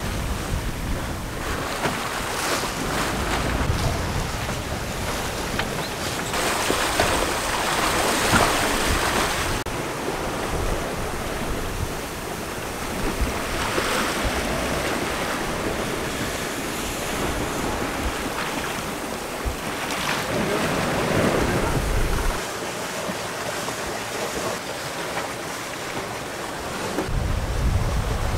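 Sea rushing and splashing past a sailboat's hull under sail at about seven knots, with wind buffeting the microphone. The wind rumble drops out for a few seconds near the end.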